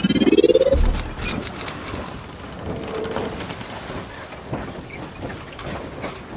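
Logo-intro sound effects: a rising whoosh that ends in a low boom just under a second in, a brief high ringing tone right after, then a steady hiss speckled with small clicks.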